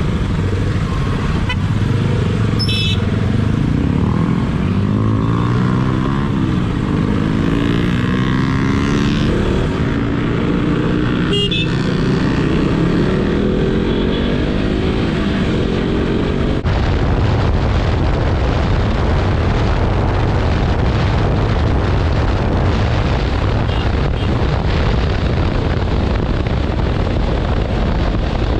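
Motorcycle engine running under way, its pitch rising and falling as the rider accelerates and eases off. About halfway through the sound changes abruptly to a steadier rushing noise over the engine.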